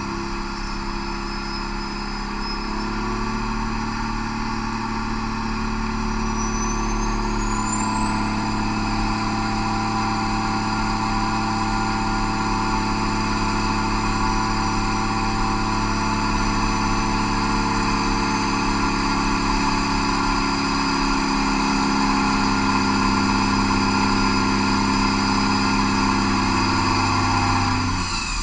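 Cummins QSM11 six-cylinder turbo diesel running on a dynamometer as load is brought on, from no load near 2,000 rpm up to full power. Its steady note grows gradually louder, and near the end the load pulls the revs down to about 1,850 rpm.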